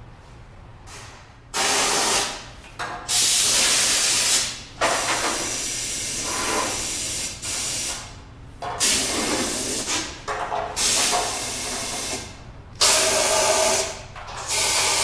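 Compressed-air blow gun blasting in repeated hissing bursts of one to three seconds each, with short pauses between, blowing loose rust and sandblasting dust out of the inside of steel car frame rails.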